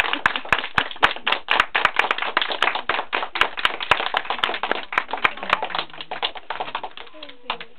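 Audience applause: many hands clapping in a dense patter that thins out and dies away near the end.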